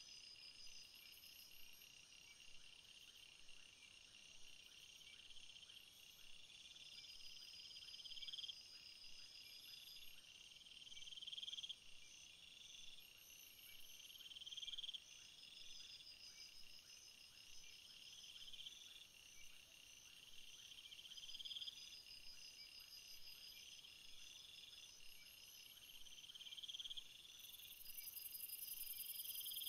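Faint insect chorus: a steady high pulsing trill, with a buzzy call that swells up and cuts off sharply every few seconds. A high hiss comes in near the end.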